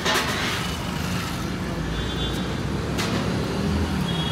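Road traffic on a busy street: a steady rumble of passing vehicles, with a sharp click about three seconds in and a faint high tone that comes and goes.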